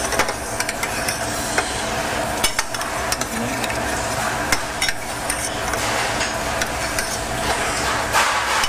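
Metal spoon clinking and scraping against a copper saucepan, in short irregular taps, as peaches are basted with hot red fruit caramel. A steady hum runs underneath.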